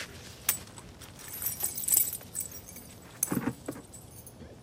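Metal jingling and clinking of a dog's collar hardware and leash clip as it is handled, loudest between about one and two and a half seconds in, with a dull thump a little after three seconds.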